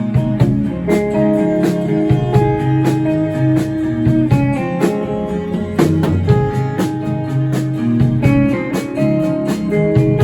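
A live band playing an instrumental passage between verses: guitar-led, with regular sharp beats keeping time.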